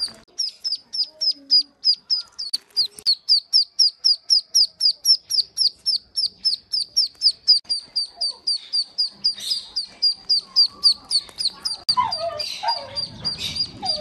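Newly hatched call duckling peeping without pause: a fast, even train of short, high, downward-sliding peeps, about four or five a second. Some lower calls join in near the end.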